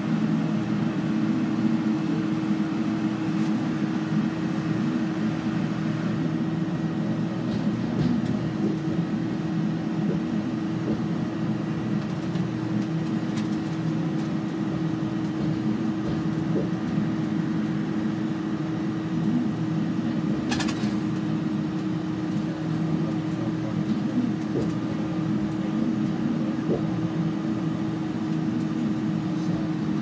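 Bus engine and road noise droning steadily from inside the cabin at highway speed, with a constant low tone under it. A single brief click sounds about two-thirds of the way through.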